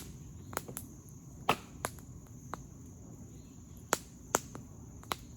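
Campfire wood crackling: sharp, irregular pops, about nine in five seconds, a few of them loud.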